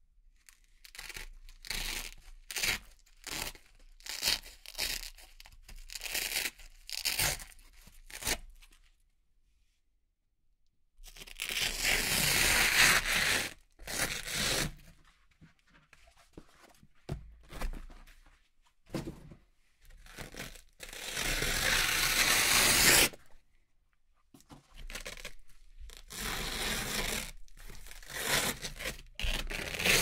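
Velcro hook-and-loop strips being peeled apart by hand: a run of short, quick rips, then two long drawn-out tears about eleven and twenty-one seconds in, with more short rips near the end.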